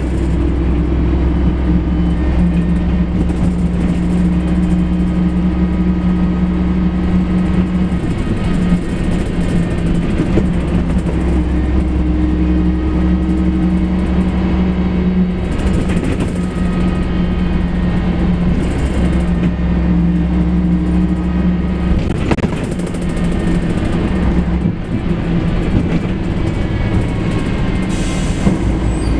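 Volvo B58 bus's underfloor six-cylinder diesel engine running steadily, heard from inside the passenger cabin. Its note changes twice, about a quarter of the way in and again about three-quarters through.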